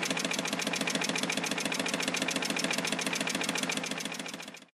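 Large home-built Stirling engine running at about 425 rpm, its linkages and drive giving a fast, steady mechanical clatter of evenly spaced knocks. The noise is louder than it should be: several parts need beefing up and the flywheel needs finer balancing. The sound fades out near the end.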